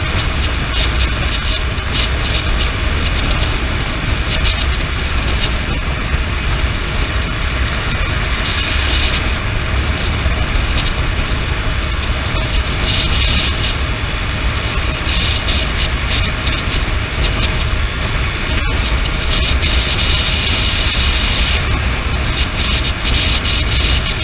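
Honda CB motorcycle cruising at steady highway speed, heard mostly as wind rushing and buffeting over the camera microphone, with the engine and road noise underneath. The sound cuts out for an instant about three-quarters of the way through.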